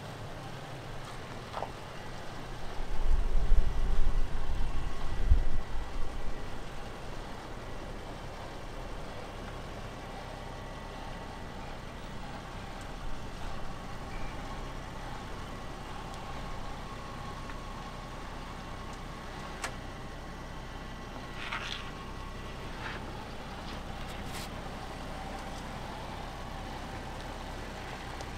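Range Rover SUV running at a slow crawl as it rolls down bare sandstone, heard from outside the vehicle. A strong gust of wind rumbles on the microphone about three to six seconds in, and a few faint clicks come later.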